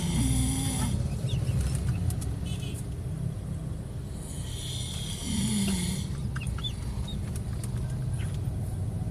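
A man snoring in deep sleep: two snores about five seconds apart, each a breathy rasp with a short low drone, the second falling in pitch, over a steady low rumble.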